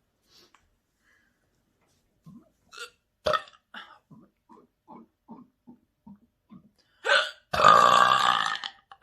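A person gulping air into the chest in a quick series of small gulps, then letting out one long, loud burp near the end.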